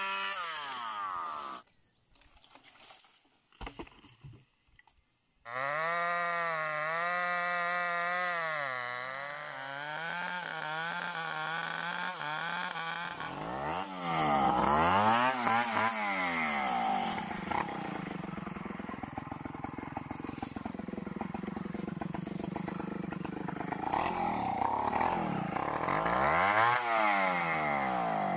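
Stihl 070 two-stroke chainsaw running hard while cutting into tree branches, its pitch held fairly steady at first, then rising and falling repeatedly under load. The sound drops almost to silence for a few seconds near the start.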